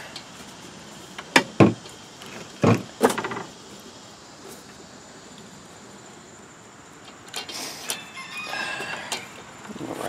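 A few sharp clicks and knocks of hand tools and hardware, then rubber fuel hose rubbing and squeaking as it is twisted and pulled off the carburetor's fuel inlet on a small single-cylinder Kohler engine.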